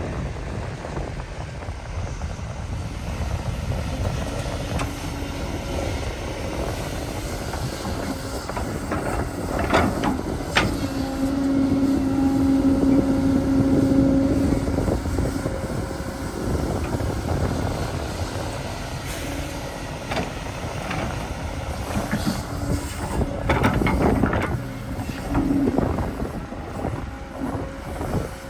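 Heavy earth-moving machinery running: a steady low engine rumble with scattered knocks and clanks, and a steady tone held for a few seconds around the middle.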